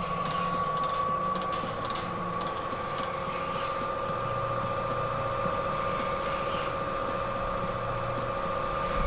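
Electric motor and gear drive of a Hata Tekkosho KP55 sugar-coating pan running, a steady whine over a low hum, with a few light ticks in the first few seconds.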